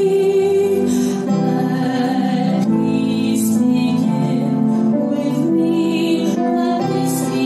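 Slow, gentle music of sustained chords that change every second or so, played during a church service.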